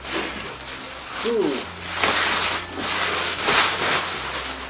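Plastic packing wrap and a large cardboard box crinkling and rustling as the box is handled and lifted upright, with two louder crinkling bursts about two and three and a half seconds in.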